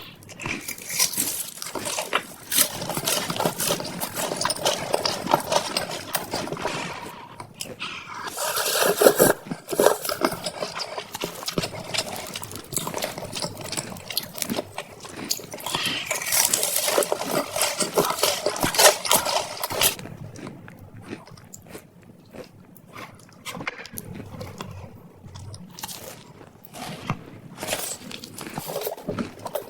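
Close-up chewing and crunching of food, in dense bouts of crackly bites and smacking, thinning to scattered clicks in the last third.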